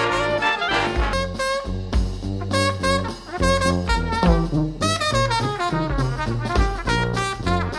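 Background jazz music in a swing style, with brass instruments carrying the melody over a regular bass line.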